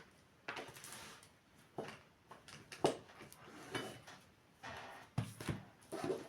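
Cards and small objects being handled on a table: about seven short, separate soft knocks and rustles spread over a few seconds.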